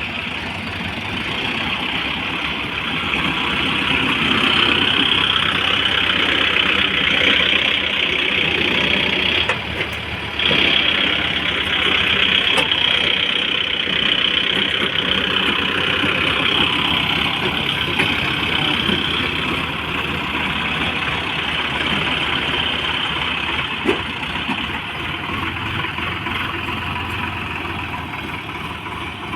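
Tractor engine running steadily under load, with a short dip about ten seconds in.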